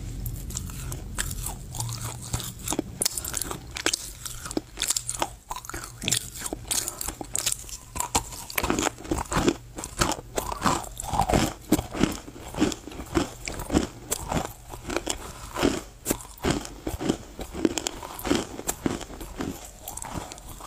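Close-miked crunching and chewing of loess clay, gritty sharp crunches in the mouth. They are scattered at first, then settle about eight seconds in into steady chewing at roughly two crunches a second.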